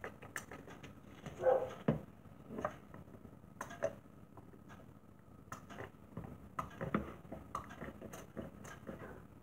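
Pump-spray butter bottle being pressed onto a slice of bread: irregular short spritzes and clicks of the sprayer. A brief mid-pitched sound comes about a second and a half in.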